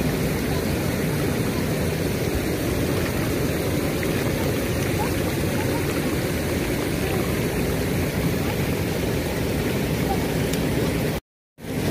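Steady rushing and splashing water from a dense crowd of catfish and tilapia churning in the shallows at the lake's edge. The sound cuts out abruptly for a moment near the end.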